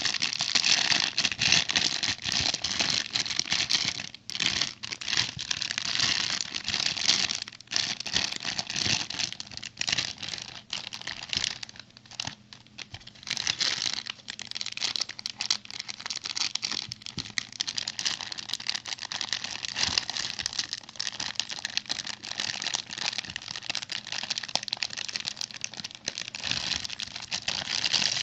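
Plastic packaging crinkling and tearing as the bags of a brick-toy set are handled and opened, with many small clicks and rattles from loose plastic bricks, almost without pause.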